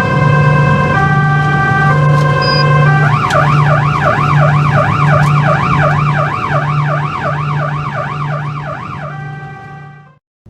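Police van siren heard from inside the van: a two-tone hi-lo alternation, switching about three seconds in to a fast rising-and-falling yelp of two to three sweeps a second, then back to the two-tone near the end. A steady low drone runs underneath, and the sound cuts out briefly just before the end.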